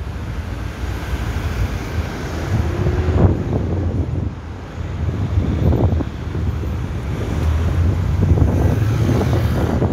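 Wind rumbling on the microphone over the steady noise of slow road traffic, with a few brief gusts about three and six seconds in.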